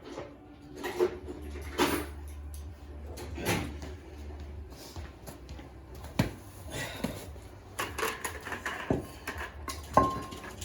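Hand tools working metal at a car's rear wheel hub while trying to free the bearing's snap ring: scattered clicks, taps and scrapes. A short ringing metal clink comes near the end, and a low hum comes and goes underneath.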